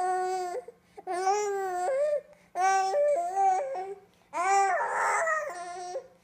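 Infant making four long, sing-song whining wails in a row, each held on one pitch with a few steps up or down, and short breaths between.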